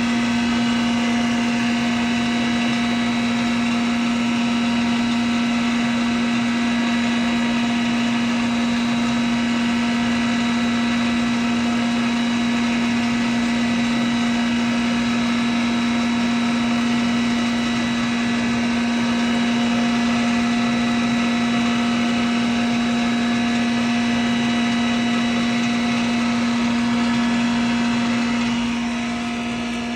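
Rice husk and bran grinding machine running steadily: a constant motor hum with a strong steady tone over an even rushing noise. It eases off slightly near the end.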